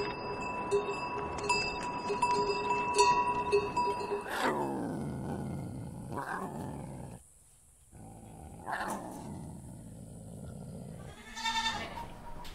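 Steady bell-like ringing tones with light clicks, then an adult male lion roaring about four seconds in: three roars, each falling in pitch, with a short silence before the last. Near the end a goat bleats.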